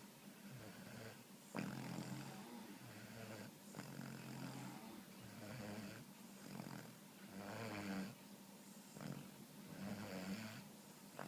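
A puppy snoring, a rough snore on each breath, repeating about every one to two seconds.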